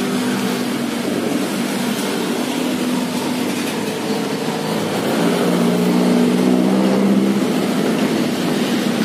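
A vehicle engine running steadily, its pitch shifting a little and getting louder about five seconds in.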